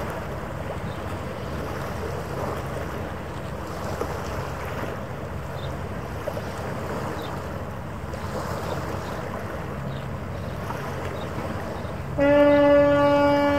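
Steady wind and harbour water noise on the microphone. Near the end a single loud horn blast sounds, one steady pitch held for nearly two seconds.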